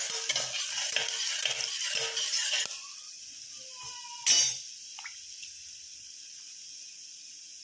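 Dals, curry leaves and a dried red chilli frying in hot oil in a pressure cooker, sizzling and crackling as a spatula stirs them. After about three seconds the crackling dies down to a quieter steady sizzle, broken once by a single sharp knock about four seconds in.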